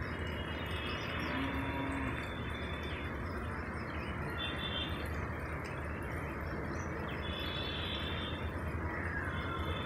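Birds calling in short bouts of high notes, four times, over steady outdoor background noise, with one falling call near the end.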